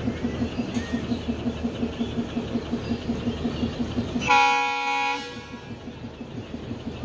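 Diesel locomotive running with a fast, even throb. About four seconds in it sounds one loud horn blast lasting about a second, then the throb carries on more quietly.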